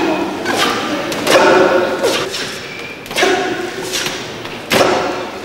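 Heavy metal balls thudding onto the arena floor as a strongman throws, catches and drops them, several heavy impacts a second or two apart, each followed by a short ring.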